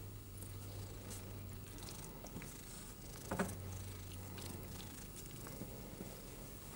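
Domestic cat purring steadily while its chin is stroked. A short sharp click about three and a half seconds in.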